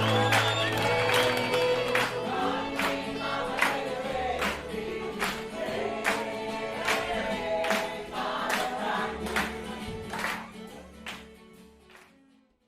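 Background music with singing and a steady beat, fading out near the end.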